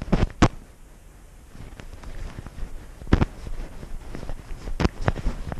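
Irregular sharp knocks and rustling from a GoPro mounted on a cat as the cat moves about: the camera bumping and the cat stepping. Two knocks come close together at the start, then single ones about three and five seconds in.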